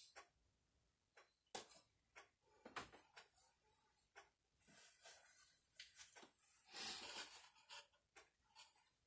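Faint clicks of a utensil tapping and scraping in a plastic food container, with a paper towel rustling for a few seconds around the middle.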